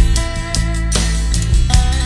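Background music: guitar playing over a steady drum beat.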